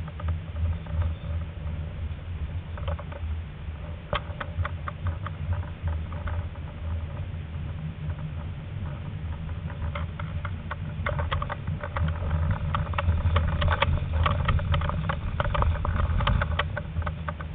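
Tram running on its rails, with a steady low hum from the tram underneath a patter of clicks and squeaks from the wheels on the track. The clicking gets busier in the second half as the tram crosses pointwork with crossing and curving rails.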